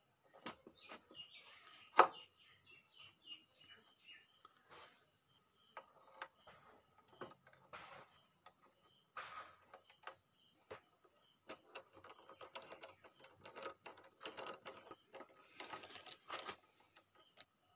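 Small metal clinks, scrapes and knocks as a motorcycle's front brake caliper is seated back over the disc and its mounting bolts are turned in with a socket wrench, with one sharp metallic click about two seconds in. Birds chirp in the background, a quick run of chirps during the first few seconds.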